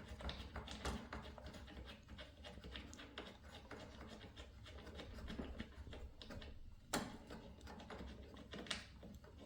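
Faint small metallic clicks and ticks of an Allen key turning out a miter saw's blade bolt, which unscrews clockwise, with a sharper click about seven seconds in.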